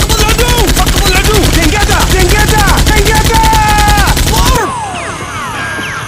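Rapid automatic machine-gun fire, about ten shots a second, starting abruptly and cutting off suddenly about four and a half seconds in, with pitched sliding tones over it.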